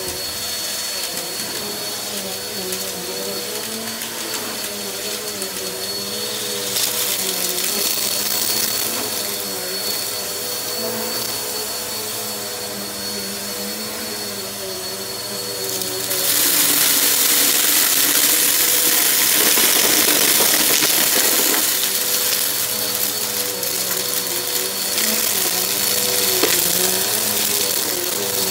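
Bissell upright vacuum cleaner running on carpet with a steady motor hum and a high whine. About halfway through it gets louder and hissier as it is pushed into the debris pile.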